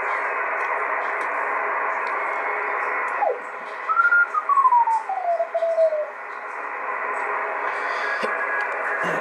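Kenwood TS-130S HF transceiver's speaker playing 20-metre band noise and signals while the tuning knob is turned. A whistling tone glides down in pitch from about four to six seconds in as the dial sweeps across a carrier.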